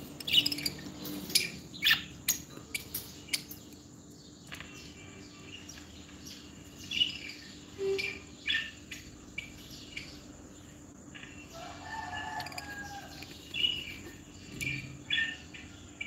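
Pet lovebirds chirping: short, sharp high calls scattered every second or two, with a brief warbling call near the end and a few sharp clicks in the first few seconds.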